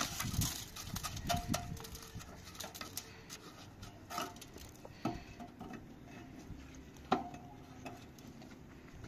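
Irregular sharp taps and knocks of a hand tool on small stones being set into place against a steel post, some with a brief metallic ring; the loudest knock comes about seven seconds in.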